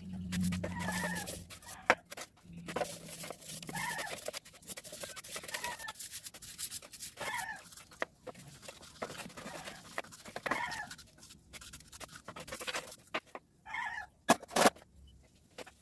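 Starter motor parts being scrubbed with a brush in a metal tray of solvent: wet brushing and rubbing, with a few sharp clinks of metal against the tray, the loudest a pair near the end. Short animal-like calls recur in the background every few seconds.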